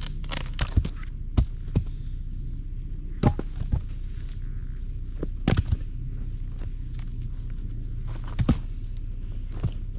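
Irregular knocks and thumps, about a dozen of them, over a steady low rumble.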